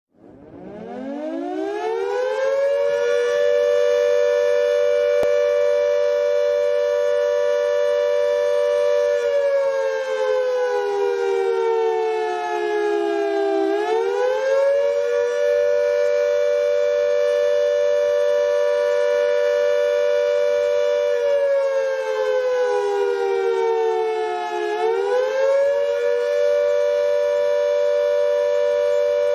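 WWII air raid siren winding up from a low growl to a steady wail over the first few seconds, two close pitches sounding together. It holds the wail, then twice sags slowly in pitch and climbs quickly back to full.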